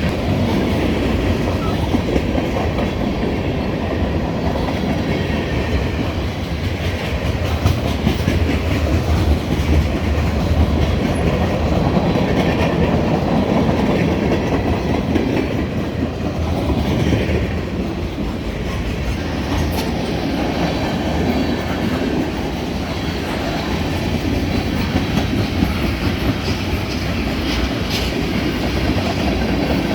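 Freight cars of a CSX train rolling past close by: a steady rumble of steel wheels on the rails.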